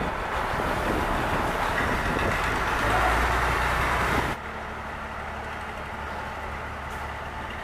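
A boat's engine running loud and close, with a dense rushing noise over a low rumble. About four seconds in it cuts suddenly to a quieter, steady engine hum.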